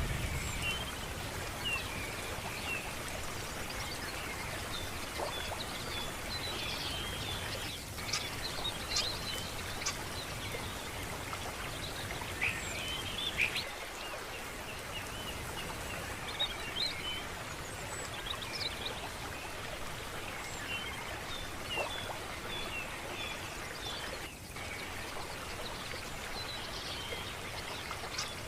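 Steady rushing of running water, with small birds chirping now and then over it.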